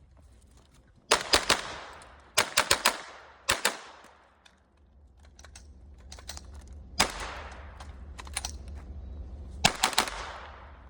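Gunfire in quick strings of two to five shots with pauses between, each shot trailing off in an echo; strings come about a second in, around two and a half seconds, at three and a half seconds and near the end, with a single shot midway.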